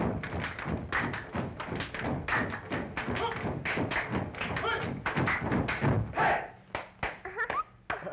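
Rhythmic group body slapping and thumping mixed with chanting voices, accompaniment for a slap dance in an early 1930s cartoon soundtrack. The slapping falls away about six and a half seconds in, leaving a single voice gliding up and down.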